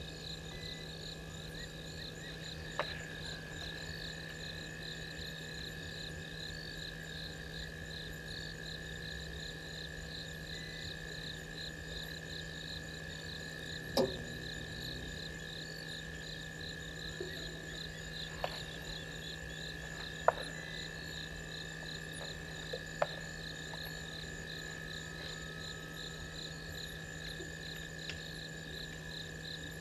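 Night chorus of crickets and other insects: a steady high trill with a faster pulsing call above it, over a steady low hum. Several short sharp clicks or snaps break through at irregular moments, the loudest two about midway and two-thirds of the way in.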